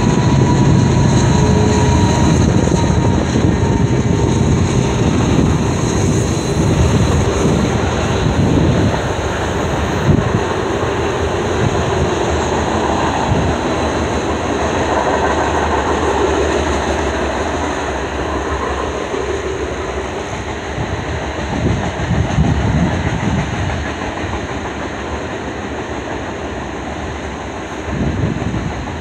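Freight train of covered hopper cars rolling past, wheels clattering along the rails over a steady rumble. The rumble is heaviest for the first several seconds, with one sharp knock about ten seconds in.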